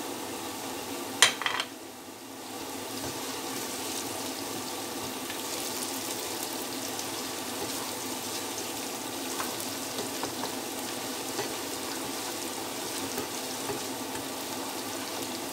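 Sliced onions sizzling in hot oil in a non-stick pot while they are stirred with a wooden spatula. There are a few sharp knocks about a second in, then a steady sizzle with small ticks of stirring.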